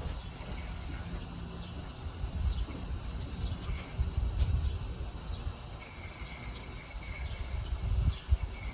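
Outdoor background of a steady high-pitched insect chorus over an uneven low rumble.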